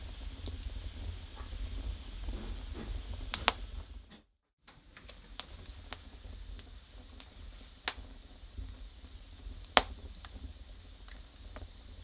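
Firewood burning in a brick Russian stove: a low steady rumble of the flames with scattered sharp crackles and pops, two of them louder, one before the middle and one near the end. The sound drops out for a moment about four seconds in.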